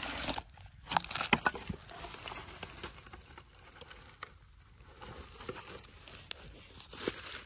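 Dry leaves and twigs rustling and crunching in bursts, loudest near the start, about a second in and near the end, with a few sharp cracks.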